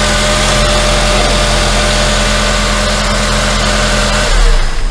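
Honda Accord i-VTEC 2.4-litre four-cylinder engine idling steadily on a freshly fitted serpentine belt, with no belt squeal. The engine is shut off about four seconds in.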